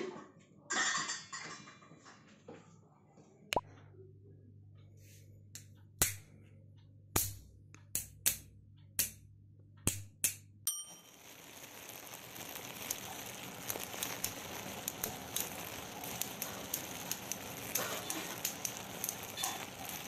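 A few seconds of crinkling, then a string of sharp single clicks and taps over a low hum, then from about halfway a steady hiss full of small crackles, like a wood fire burning.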